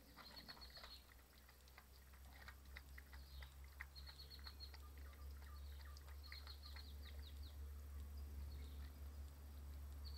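Puppies lapping water and eating from a bowl: soft, irregular clicks and smacks, with a few short runs of rapid high-pitched chirps, over a steady low rumble.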